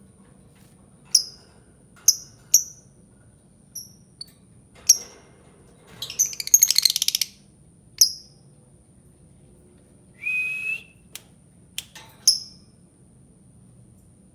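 Lovebird calling: sharp, high single chirps every second or so, with a fast chattering run about six seconds in. A short steady whistle sounds near the ten-second mark.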